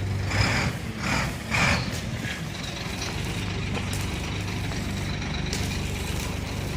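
An engine running steadily in a low, even hum, with a few short metallic rattles or scrapes in the first two seconds.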